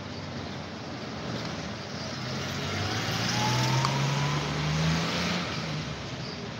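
Motor vehicle engine noise that grows louder from about two seconds in, its pitch rising slowly, then eases off near the end.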